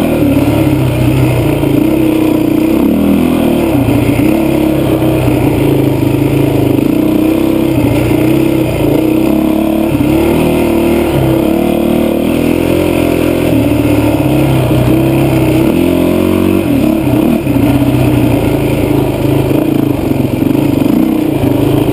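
Honda CRF450X's single-cylinder four-stroke engine running loud under way, its revs rising and falling continuously with the throttle.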